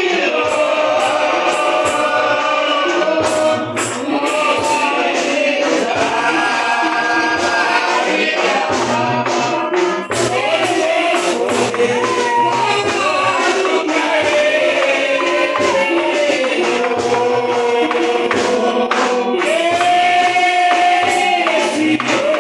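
A church congregation singing a spiritual, led by a man's voice through a microphone, over a steady percussion beat.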